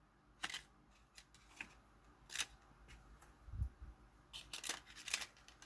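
Faint crinkling of a small plastic bag and light clicks of small plastic model parts being put back into it, in short scattered bursts, with a soft low thump about three and a half seconds in.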